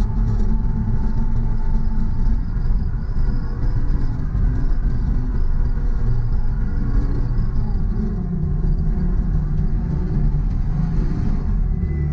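Diesel engine of a John Deere 329E compact track loader running steadily.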